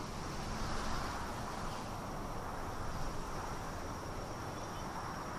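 Steady outdoor ambience: a thin, high, unchanging insect drone over a low steady hiss.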